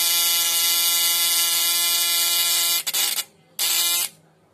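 A homemade 12-volt fish stunner buzzing steadily as its contact breaker drives the coil, with the hiss of its high-voltage spark arcing into paper and setting it alight. The buzz cuts off a little under three seconds in, then sounds again in short spurts before stopping.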